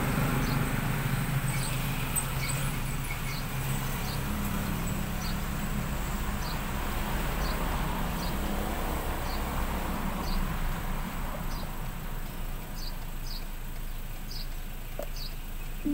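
Car engine and road hum heard from inside the cabin while driving slowly, with short high-pitched chirps repeating irregularly about twice a second.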